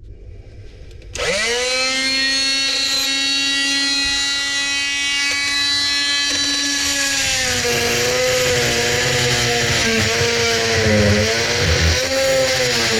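Small handheld power tool starting up and spinning up to a steady high whine, then cutting into a corroded drain nut, its pitch dipping and wavering under load from about halfway through.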